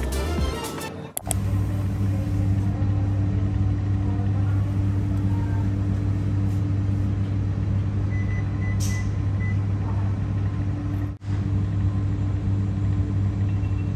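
Steady low electrical hum of a refrigerated display cabinet running. About eight to nine seconds in there is a brief hiss and a faint high beep.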